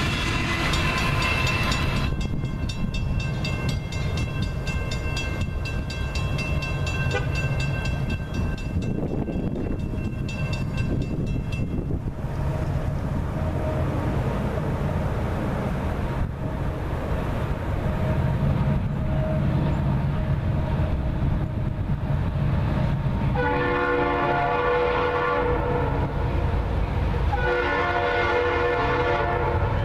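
Approaching CSX freight train led by an SD60I diesel locomotive: a low rumble builds, then the locomotive horn sounds two blasts in the last third, the first about three seconds long and the second about two. Earlier, the rush of a passing train's end gives way to a pulsing metallic ringing lasting about ten seconds.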